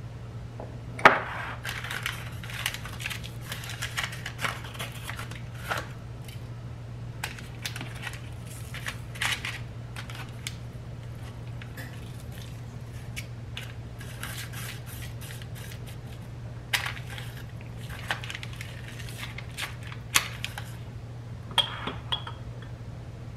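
Metal spoon clinking and tapping against a glass spice jar and a metal sheet pan: scattered light clinks and clicks, the sharpest about a second in, one briefly ringing near the end, over a steady low hum.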